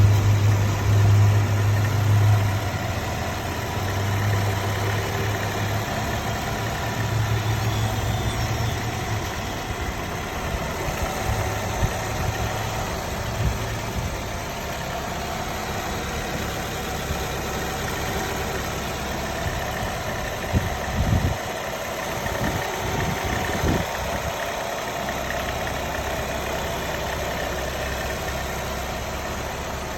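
Nissan Altima 2.5 SV engine idling with a rattle and a whine that the owner cannot identify. A low droning hum comes and goes through the first half, and a few short knocks come about two-thirds of the way through.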